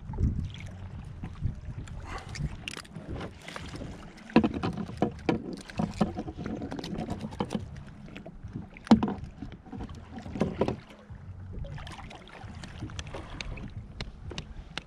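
Irregular clicks and knocks of hands and tackle on a plastic fishing kayak as a small fish is taken off the hook, over a steady low rumble.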